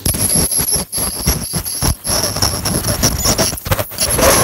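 Ultrasonic dental scaler working tartar off a dog's teeth: a steady high-pitched whine over irregular scraping and hissing noise.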